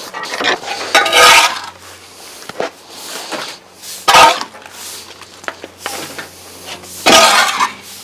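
Clean-up clatter: three loud bursts of metallic clattering and scraping, about one, four and seven seconds in, with lighter knocks in between.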